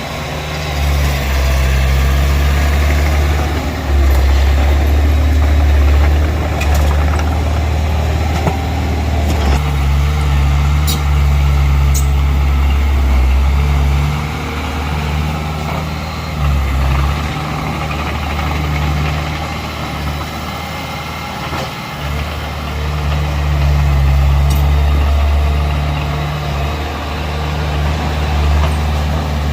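Diesel engine of earthmoving machinery running under varying load, a steady low drone that swells and eases, with a couple of faint clicks near the middle.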